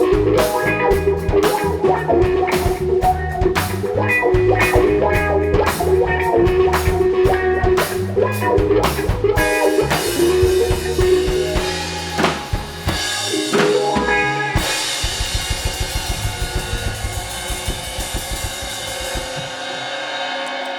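Live rock-funk band playing instrumentally: electric guitar, electric bass and drum kit driving a steady beat. About twelve seconds in the groove breaks off, and the song closes on a held final chord over a fast drum roll and cymbals that die away near the end.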